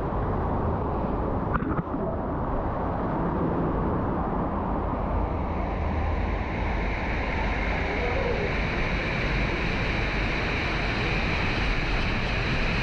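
Steady rush of water, growing brighter and hissier about halfway through.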